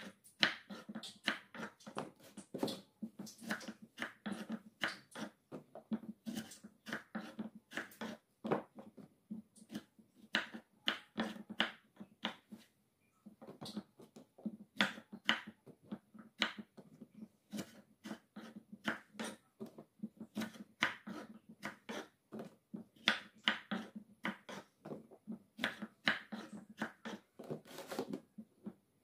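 Kitchen knife cutting small round green eggplants on a wooden cutting board: a quick, irregular run of sharp knocks as the blade goes through each eggplant and hits the board. There is a brief pause a little before halfway.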